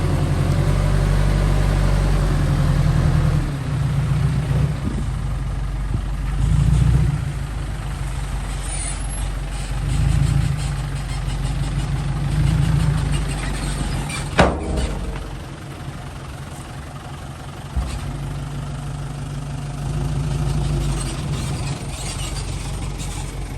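Heavy earth-moving machinery with its diesel engine running, the engine note rising and falling every second or two as it works. A sharp, brief sound cuts in about fourteen seconds in, and a smaller knock follows a few seconds later.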